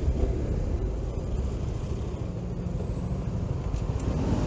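Honda GTR150 motorcycle's 150 cc single-cylinder engine running at low speed while riding through slow traffic, a steady low rumble with road noise.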